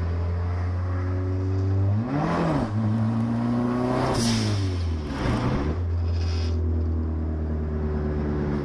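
Turbocharged Ford Escort's 1.6 Zetec Rocam four-cylinder engine running at a steady driving note. Its pitch swings up and back down about two seconds in, falls again around four seconds, and dips and climbs around five seconds. There is a brief rush of noise near the middle.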